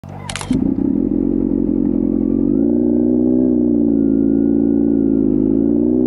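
Inline-four motorcycle engine running under way, its pitch stepping up about two and a half seconds in and dipping briefly near the end. A short sharp noise comes at the very start.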